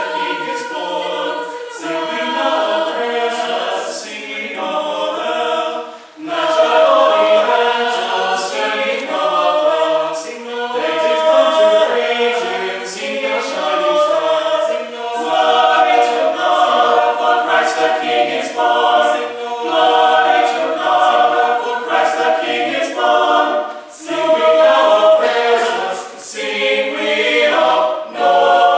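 A small mixed choir of men's and women's voices singing a cappella in parts, in long phrases with short breaks for breath about six seconds in and again near the end.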